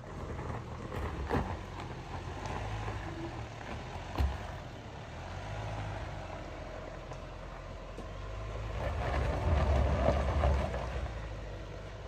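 An off-road vehicle's engine pulling up a steep dirt slope. It runs steadily, then revs louder about eight seconds in before easing off, with a couple of short knocks early on.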